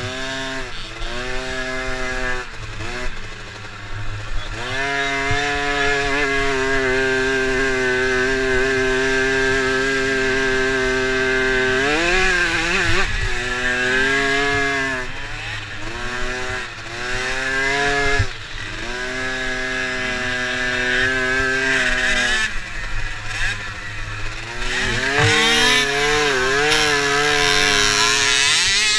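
A youth dirt bike's engine heard from on board, revving up and falling back again and again with throttle and gear changes. Near the end a second dirt bike's engine is heard alongside.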